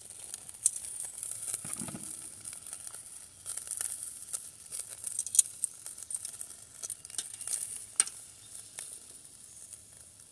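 Raw hamburger patties sizzling on a small charcoal grill over hot coals: a steady high hiss with scattered sharp pops and crackles.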